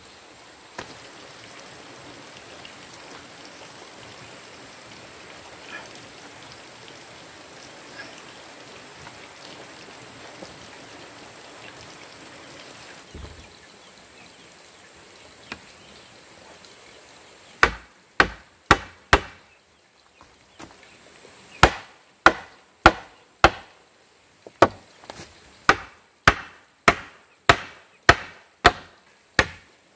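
Steady background hiss, then from a little past halfway a run of sharp hammer blows on timber, about two a second in short series, as a wooden rail is fastened to a post.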